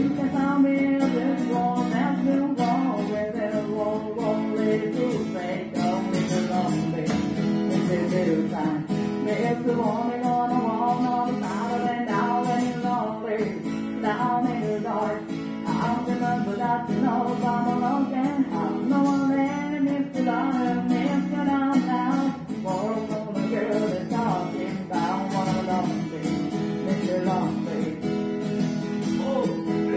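Background music: a song carried by strummed acoustic guitar, playing steadily throughout.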